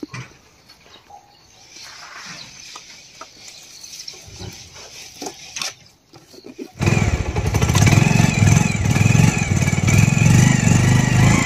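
A few light clicks and knocks as luggage straps are handled on a motorcycle, then about seven seconds in a Bajaj Pulsar's single-cylinder engine comes in suddenly and runs steadily and loudly.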